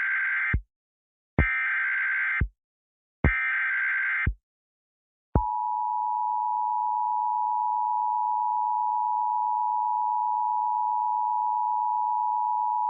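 Emergency Alert System signal: the end of the first of three digital SAME header data bursts, then the second and third, each about a second long. About five seconds in, the two-tone EAS attention signal (853 and 960 Hz together) begins and holds steady for about eight seconds.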